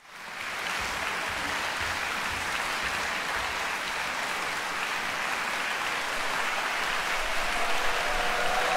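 Concert audience applauding steadily as the performers walk on stage, fading in at the start.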